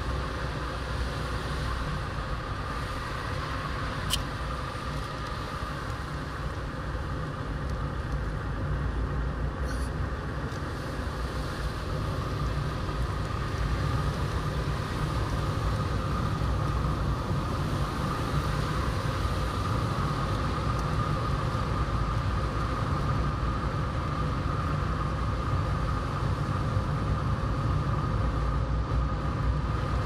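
Steady road and engine noise of a moving car heard inside the cabin: an even, low tyre-and-engine rumble, with a single click about four seconds in.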